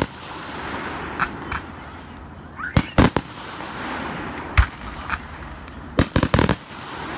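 Fireworks exploding: a series of sharp bangs, some coming singly and some in quick clusters of two or three, around three seconds in and again about six seconds in.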